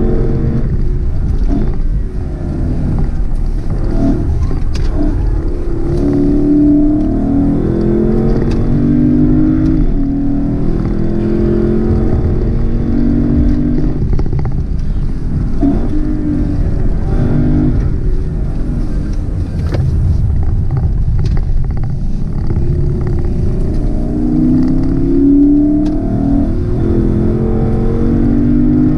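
Lexus LC500's naturally aspirated 5.0-litre V8, heard from inside the cabin as the car accelerates up a winding climb. The engine note rises and falls back repeatedly as the 10-speed automatic shifts and the driver eases off for bends.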